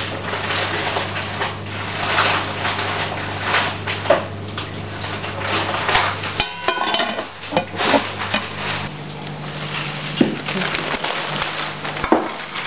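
Kitchen clatter of pots and utensils: repeated knocks and scrapes over a steady low hum.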